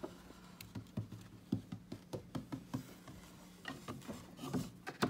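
A toy doll's feet tapped by hand along a dollhouse floor and down its stairs: a string of light taps, a short pause about three seconds in, then more taps, the last one the loudest.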